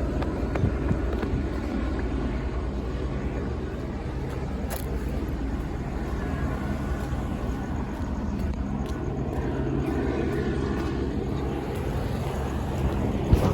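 Helicopter flying low overhead: a steady drone of rotor and engine with a low, even hum.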